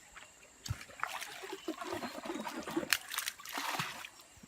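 Stream water splashing and trickling, in irregular bursts, with a dull knock just before it starts and a sharp click about three seconds in.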